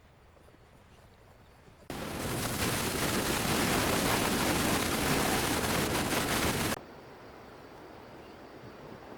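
Loud, steady rushing noise that cuts in suddenly about two seconds in and stops just as abruptly about five seconds later, between stretches of faint outdoor ambience.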